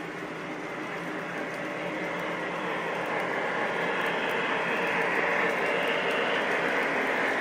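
O-gauge model freight cars, chrome-plated 100-ton covered hoppers among them, rolling past on three-rail track: a steady rumble and clatter of metal wheels on the rails, growing louder toward the end.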